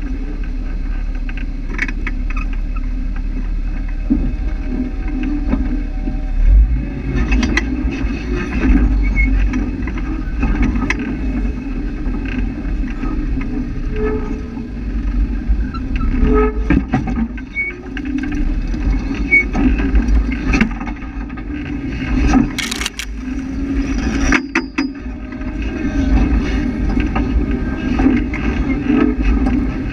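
Off-road 4x4's engine running steadily at crawling speed over a rocky trail, with occasional knocks and clunks as the tires and suspension go over rocks, the loudest two about two seconds apart near the end.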